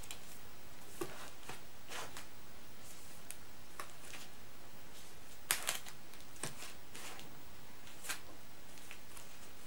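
Comic books in plastic bags being handled, with scattered rustles and crinkles of the bags. A couple of sharper taps come a little past halfway.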